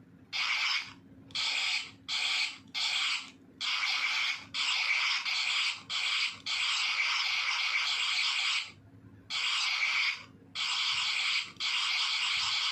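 DX Sakanamaru toy sword playing electronic sound effects through its small built-in speaker: a run of about a dozen hissy bursts, some short and some up to about two seconds long, each starting and stopping abruptly with brief gaps between them.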